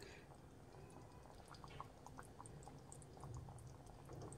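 Faint, scattered small pops and ticks of thick egg sambar simmering in a pan.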